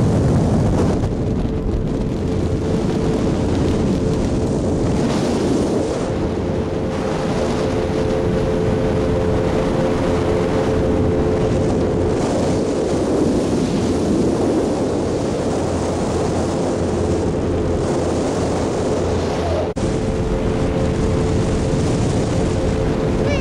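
Motorboat engine running steadily at cruising speed, with a faint steady tone above its drone.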